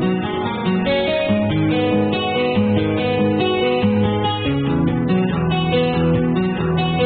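Acoustic guitar music, plucked and strummed, playing steadily.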